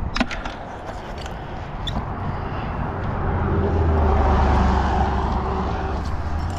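A vehicle passing on the road, building from about two seconds in and loudest a little past the middle, then easing off. A few sharp clicks at the very start.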